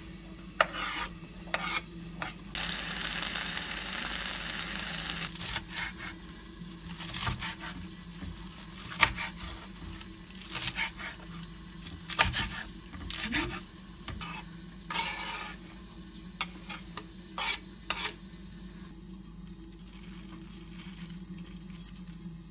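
Food sizzling in a pan, with a utensil stirring, scraping and clicking against it in short bursts. A steady low hum runs underneath.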